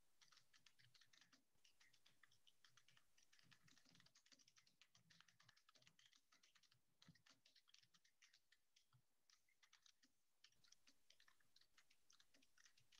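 Faint typing on a computer keyboard: quick, irregular key clicks, several a second, with brief pauses.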